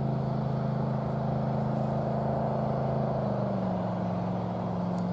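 An engine running steadily with a low, even hum; its note changes slightly about three seconds in.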